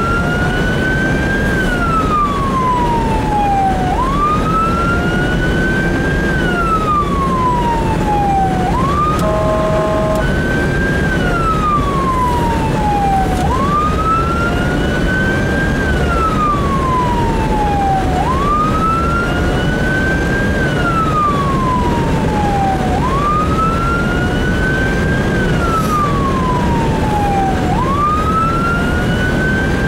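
Fire-rescue vehicle's siren wailing, each cycle a quick rise then a slower fall, about every five seconds. It is heard from inside the cab over steady engine and road noise, with a brief multi-tone horn blast about nine seconds in.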